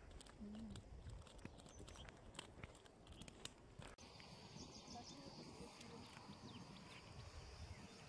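Near silence: faint outdoor ambience, with a few faint clicks in the first half.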